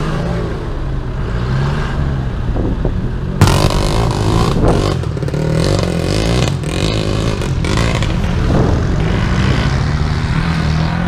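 Off-road 4x4 engines running and revving as the vehicles drive through deep mud, the engine note rising and falling, with an abrupt jump in the sound about three seconds in.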